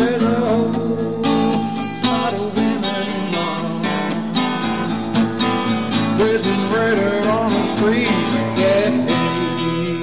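Acoustic guitar strummed in a steady rhythm, with a melody line of bending notes over the chords, clearest from about six seconds in.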